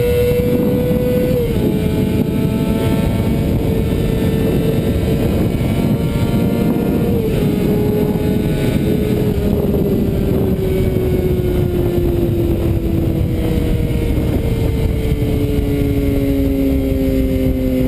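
A 2013 Kawasaki Ninja ZX6R 636's inline-four engine runs hard through an M4 GP-style slip-on exhaust, over rushing wind noise. Its pitch drops suddenly twice, about 1.5 s and 7 s in, then falls slowly as it winds down.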